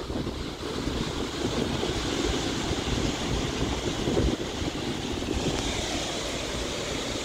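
Steady rush of water pouring through a dam's floodgates, with wind buffeting the microphone.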